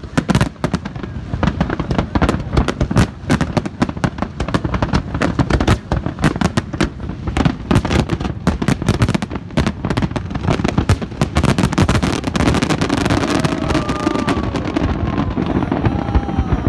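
Large aerial fireworks display: a rapid, continuous barrage of shells bursting, many bangs a second, easing off near the end.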